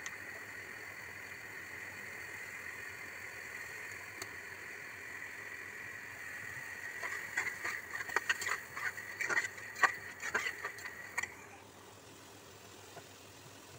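A metal spatula scrapes and knocks against an aluminium pan of simmering curry. There is a quick run of clicks and scrapes in the second half, over a steady cooking hiss that fades out near the end.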